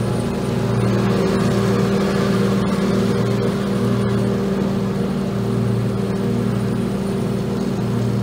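Stand-on lawn mower's engine running steadily as the mower drives along, a constant low drone with a slight rhythmic pulsing.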